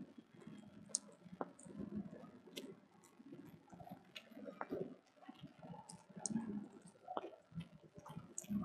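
Faint, irregular clicks, about eight of them scattered unevenly, over a quiet room with soft low rustling.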